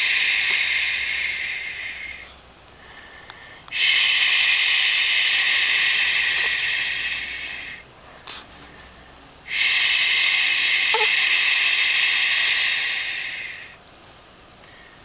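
An adult shushing a fussing baby with long, drawn-out "shhh" sounds, about four seconds each, repeated with short breaks for breath between them.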